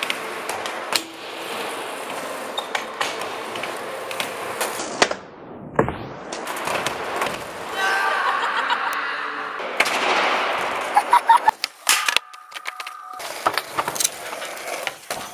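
Skateboard wheels rolling over ramp and concrete, broken by sharp cracks and slaps of the board's deck and tail hitting the surface, with a quick run of cracks near the end.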